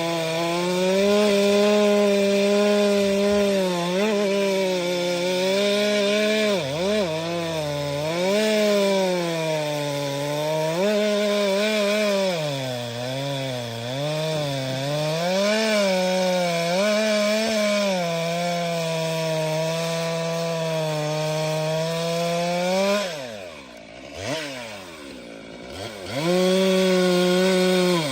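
Stihl MS 462 C-M two-stroke chainsaw cutting firewood at high revs, its engine pitch repeatedly dipping and recovering as the chain bites into the wood. Near the end the throttle is let off, so the engine falls toward idle for a few seconds, then revs back up to full speed.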